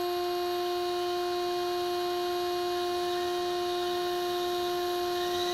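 A steady, unchanging pitched hum with two higher overtones, held at one level throughout.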